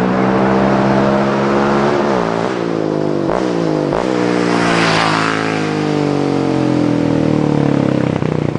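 Yamaha Raptor 700R quad's single-cylinder four-stroke engine with dual exhaust accelerating hard, its pitch climbing and dropping back at each of three quick upshifts, then holding at speed as it passes close by near the end.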